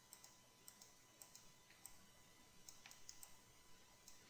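Faint computer mouse clicks, a string of short clicks often in close pairs, as the Subdivide button is clicked several times, otherwise near silence.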